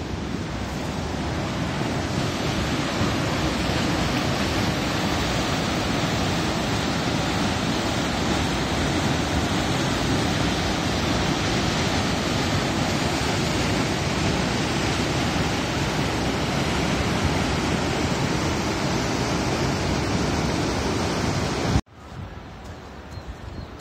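Steady rushing of a fast mountain stream or waterfall, a dense even roar of water that cuts off abruptly near the end, giving way to much quieter background sound.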